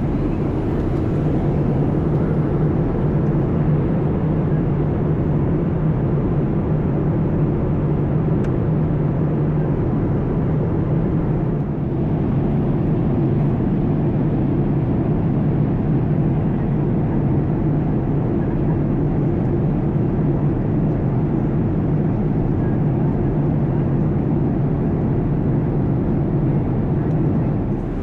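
Boeing 787 Dreamliner cabin noise: a steady, even low rumble of engines and airflow that does not change.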